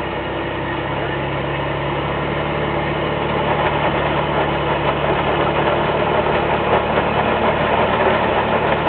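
Toyota FJ62 Land Cruiser engine working at low speed under load while crawling up a rock ledge. It runs steadily and grows gradually louder.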